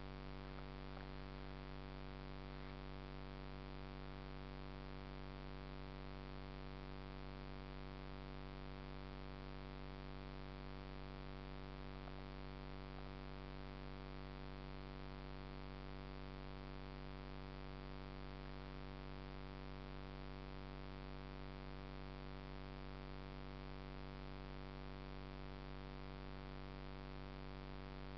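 Steady electrical hum with many overtones, unchanging in pitch and level throughout.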